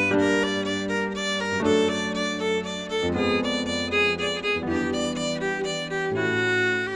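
Violin and digital piano playing a waltz together: a bowed violin melody over sustained piano chords and bass notes.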